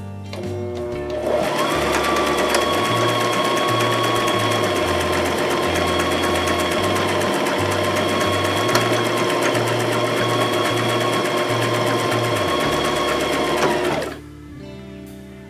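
A Brother LX2763 sewing machine starts about a second in and runs at a steady speed, stitching a one-step buttonhole with a fast, even needle rhythm, then stops abruptly a second or so before the end. Background music with a bass line plays underneath.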